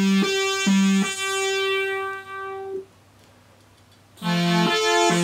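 Synthesizer notes played from the Open Horn MIDI wind controller, jumping between octaves as the thumb octave sensors are touched. A held higher note is cut into twice by short notes an octave below. It stops a little under three seconds in, and more notes moving between the two octaves start about a second later.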